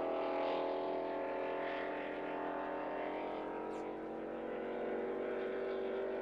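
Racing boat engine running steadily at speed, its pitch sagging slowly and then holding.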